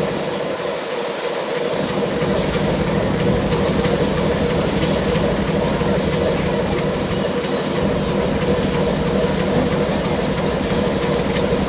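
A 48 class diesel-electric locomotive running steadily as it rolls slowly past close by: a continuous engine drone holding a steady mid-pitched tone, with the rumble of wheels on the rails.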